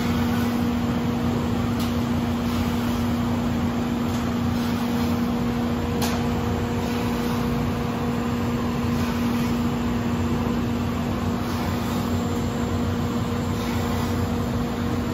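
Anderson Selexx 510 CNC router at work in its drilling program, boring hinge holes with its drill head: a steady machine hum with a constant low tone, and a couple of faint clicks.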